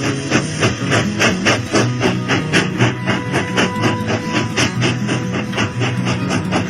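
Background music with a fast, steady strummed rhythm over a held low note.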